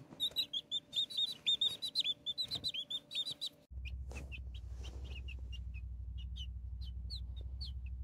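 Broiler (meat-bird) chicks peeping: a quick run of short, high, falling peeps, then about three and a half seconds in the peeps turn sparser over a steady low hum that starts suddenly.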